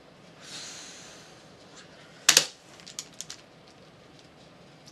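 A breathy exhale, then one sharp clack and a few light clicks as a Rubik's cube and timer are handled between solves.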